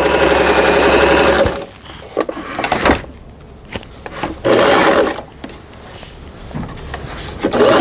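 Lion 419S household sewing machine stitching at speed for about a second and a half, then stopping; after a few clicks it runs again briefly about halfway through. It is running after its damaged gearbox was replaced.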